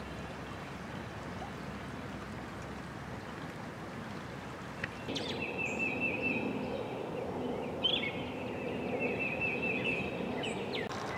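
Outdoor ambience, at first a steady rush like flowing stream water. About five seconds in a bird sings two trilled phrases over a lower background.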